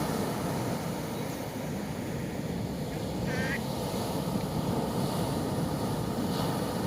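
Steady rush of ocean surf breaking on a beach, with a short high-pitched call about three seconds in.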